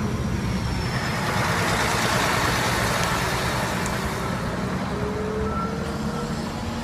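Road vehicle engine and tyre noise, a steady low rumble with a rushing haze that swells about two seconds in and slowly fades, as of a vehicle passing close by.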